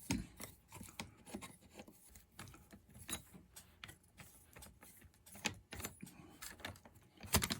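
Scattered light clicks and knocks of plastic parts being handled as the air filter cover comes off a Poulan Pro chainsaw, with a couple of sharper knocks near the end.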